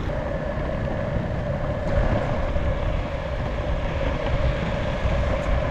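Verreal RS electric skateboard rolling on street wheels over interlocking paving blocks: a steady rough rumble from the wheels on the brick joints, with a steady whine from the dual belt-drive hub motors.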